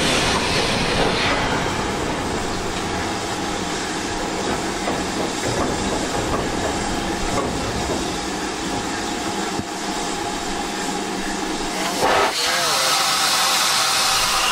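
Ivatt Class 2MT 2-6-0 steam locomotive hissing steam at close range. About 12 seconds in there is a brief louder sound, and the hiss grows stronger after it.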